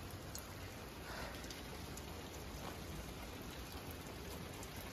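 Steady rain falling, with scattered sharp drop hits.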